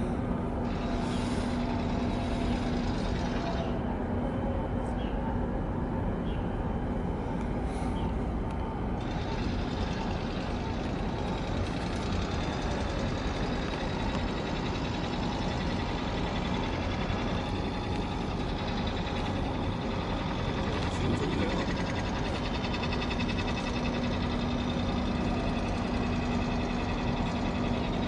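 Steady low engine rumble, with a low hum heard for the first few seconds and again over the last several seconds.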